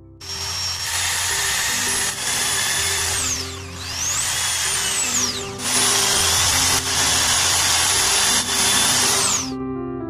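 Cordless drill running, boring a hole through a wooden slat. Its high motor whine dips and speeds back up about four seconds in, then winds down near the end. Soft background piano music plays underneath.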